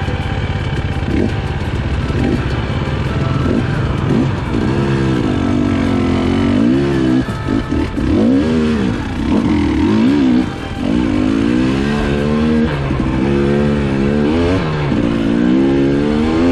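KTM 300XC-W TPI two-stroke dirt bike engine revving up and down under load on a steep trail, its pitch rising and falling every second or two and dropping off briefly a couple of times.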